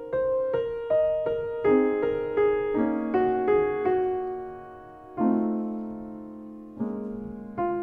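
Slow background piano music: single notes and chords, each struck and left to fade away.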